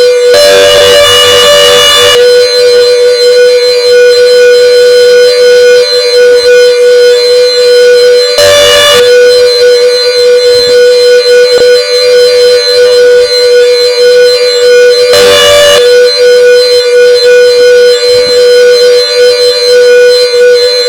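Klaxon CS8 siren sounding a steady, unwavering high tone at full volume, loud enough to overload the recording. Three short bursts of noise break in, about seven seconds apart.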